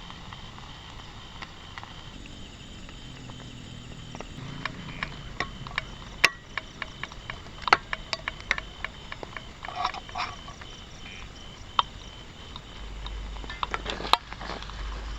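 Irregular clicks and knocks of objects being handled, sparse at first and busier from about four seconds in, with a low rumble rising near the end.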